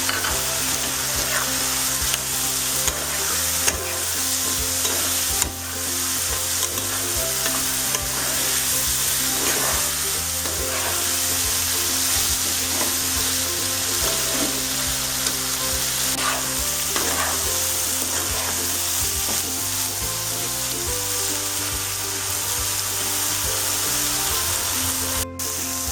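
Chicken with ginger-garlic paste, turmeric and chilli powder sizzling steadily in hot oil in a pan while being stirred, with occasional scrapes of the spatula: the spice masala being fried down (kosha) after a splash of water. Soft background music with slowly changing chords plays underneath.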